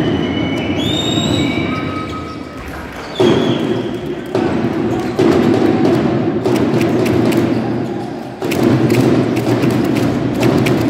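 Basketball game on an indoor court: sneakers squeaking and the ball thudding over a loud arena crowd that swells up several times.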